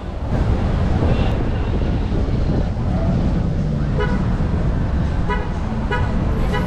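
Street traffic noise with a car horn honking in about four short toots, starting about four seconds in.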